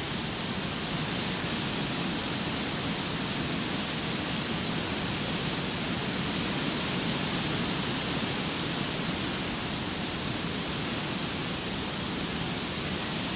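A steady, even rushing hiss with no rhythm or pitch, unchanging in level throughout.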